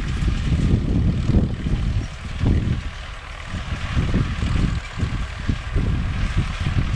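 T-28 tractor's T-40 diesel engine running steadily under load as it pulls a hay tedder, with a low rumble that swells and dips irregularly, easing a little about halfway through.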